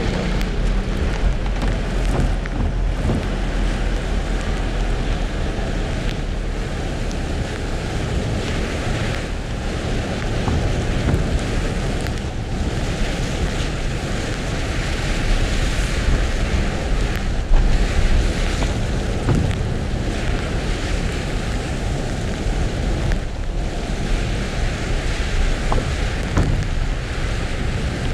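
Steady rushing noise of a car driving through heavy rain: rain on the car's roof and windshield and tyres on the wet road, with a few faint ticks of drops.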